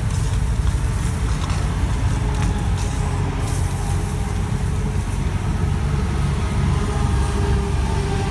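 Steady interstate traffic noise, a loud low rumble of cars and trucks passing at speed; a truck's engine note comes through over the rumble in the second half.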